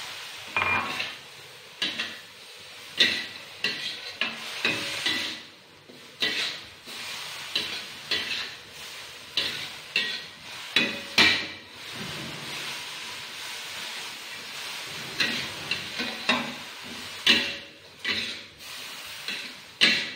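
Metal spatula scraping and clanking irregularly against a wok as bean sprouts with salted fish and garlic chives are stir-fried, with steady sizzling underneath.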